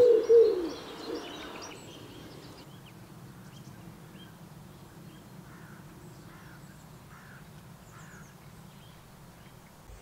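Common wood pigeon cooing, its last low hooting notes ending within the first second. After that, scattered faint high chirps of small birds.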